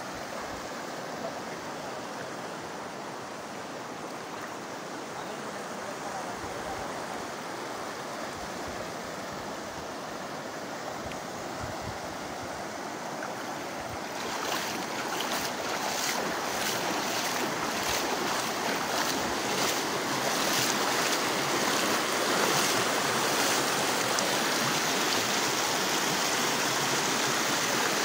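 Fast-flowing floodwater rushing over open ground, a steady roar of turbulent water that grows louder about halfway through.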